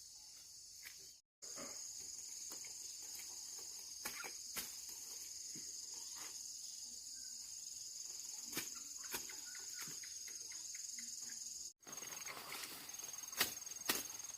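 Steady high-pitched drone of insects, with scattered light clicks and knocks. The whole sound cuts out for an instant twice.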